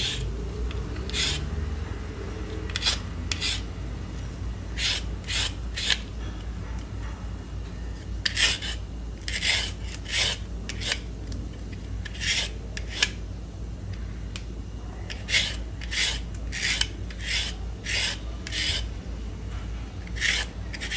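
Plastic vegetable peeler scraping ribbons off a cucumber: about two dozen short strokes, irregularly spaced and often in quick runs of three or four.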